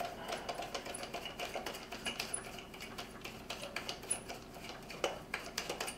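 Many quick, irregular small clicks and ticks of a hex driver turning out a screw from a plastic speaker base plate.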